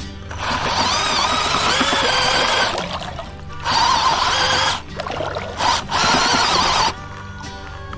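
Cordless drill turning a mixing paddle through a bucket of clay and water slurry, run in three bursts of one to two seconds, each a whine whose pitch wavers as the paddle churns the mud. Background music plays underneath.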